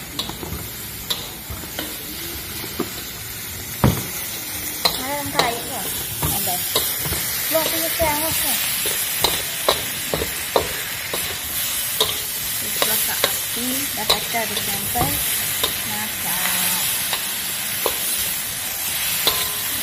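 Sliced unripe durian and anchovies sizzling in hot oil in a wok, with a metal spatula scraping and clinking against the wok at irregular intervals as the food is stirred and turned. A few short squeals come from the spatula scraping the metal.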